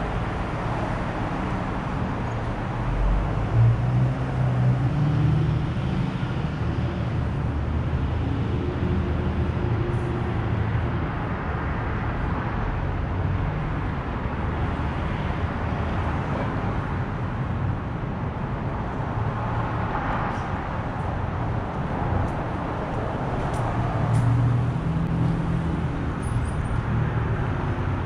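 Street traffic: a steady rumble of cars going by, growing louder as vehicles pass about four seconds in and again near the end.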